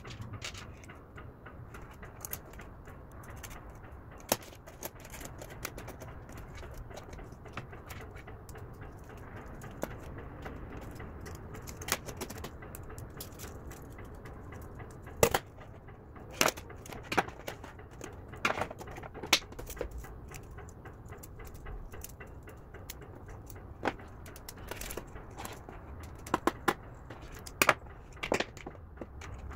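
Small metal parts (nuts, screws, pogo pins and tools) clicking and clinking against an aluminium jig plate and the desk as pogo-pin holders are assembled by hand. Sharp clicks come at irregular intervals, the loudest about fifteen seconds in, with a quick cluster near the end.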